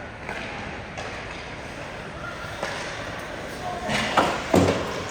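Ice hockey game in an arena rink: spectators' voices over the rink background, with two sharp bangs a little after four seconds in.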